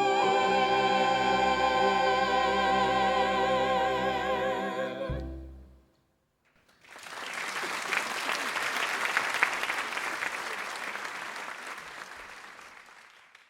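A theatre chorus and orchestra hold the final chord of a musical number, voices wavering with vibrato, then cut off together about five seconds in. After a short pause, an audience applauds, fading out near the end.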